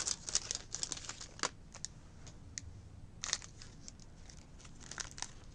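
A baseball-card pack wrapper crinkling and tearing as it is opened, with the cards clicking as they are handled. The crinkles come in a cluster in the first second and a half, again about three seconds in and near five seconds.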